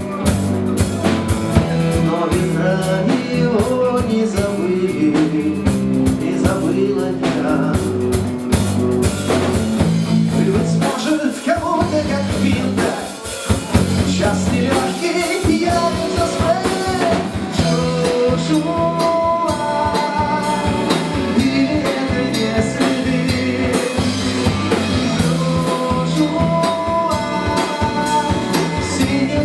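Rock song with guitar and drum kit playing an instrumental passage, without sung words.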